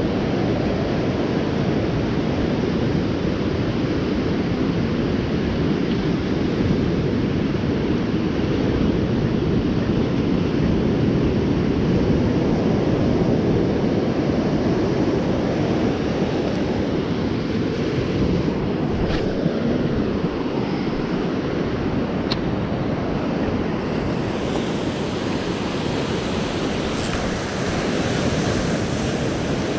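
Small surf breaking and washing up a sandy beach, a steady rushing wash, with wind buffeting the microphone.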